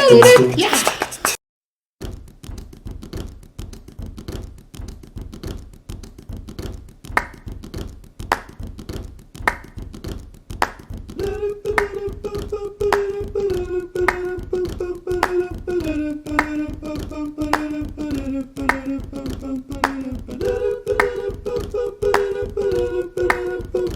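Loud music with singing stops abruptly about a second in. After a brief gap comes a fast, even tapping beat, and about halfway in a voice joins it, humming a slow tune that steps between a few held notes.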